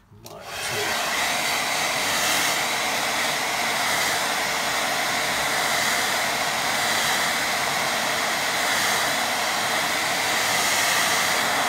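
Hand-held electric dryer blowing hot air over a wet watercolour wash to dry it. It is switched on and comes up to speed within the first second, then runs at a steady, even rush of air.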